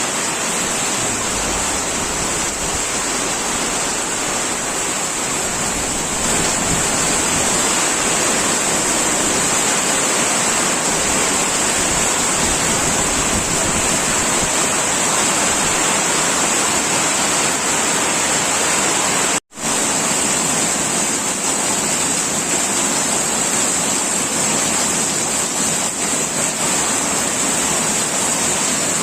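Steady hiss of heavy rain, cut off for an instant about two-thirds of the way through.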